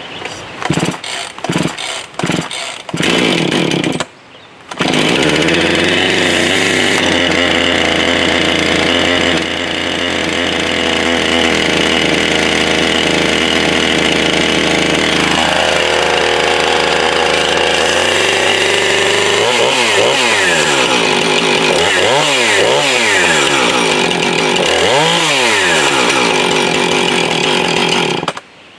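Husqvarna 445 two-stroke chainsaw being started: a few seconds of sputtering, then it catches about five seconds in and runs fast and steady. It drops to a lower idle, is revved up and down several times, then cuts off suddenly near the end. This is a test run after fitting a new bar and chain.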